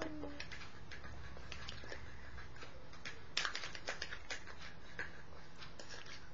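Faint scattered small clicks and light handling noises, with a short cluster of clicks about three and a half seconds in.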